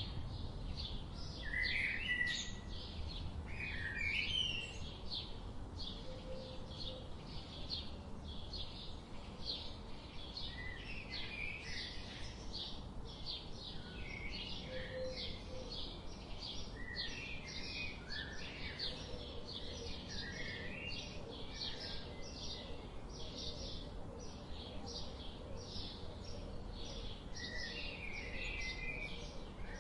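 Birds singing: a steady series of short, high chirps repeating about twice a second, with lower chirps of another bird scattered among them, over a low steady background rumble.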